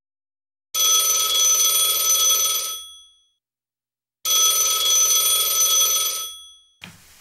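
Telephone bell ringing twice, each ring about two seconds long and dying away at the end.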